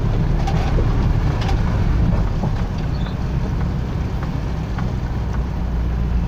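A car's engine running low and steady, heard from inside the cabin as the car drives slowly through floodwater, with water sloshing around it. Scattered short ticks sound throughout.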